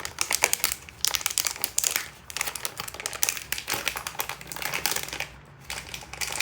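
Plastic blind-bag packaging crinkling as it is handled and pulled at by hand, in irregular rustly bursts with short lulls about two and five seconds in; it does not tear open.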